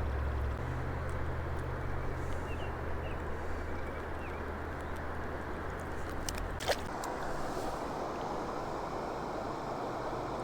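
Steady rushing of flowing creek water with a low hum underneath that stops about two-thirds of the way through. A few faint chirps and a single sharp click are heard over it.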